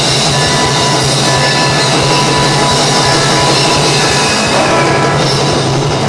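Music with a drum kit, playing steadily.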